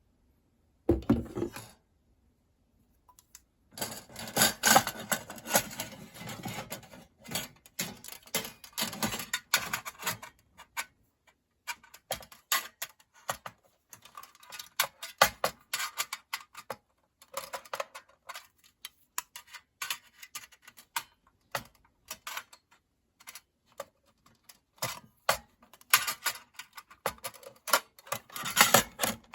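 Clicks, clinks and light clattering of thin metal parts of a compact fire pit being handled, fitted together or taken apart, in irregular bursts with short pauses.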